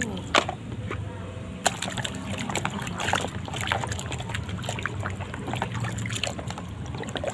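A hand sloshing and scrubbing plastic toy vehicles in a basin of soapy water: splashing and swishing, with many small sharp knocks of plastic against plastic.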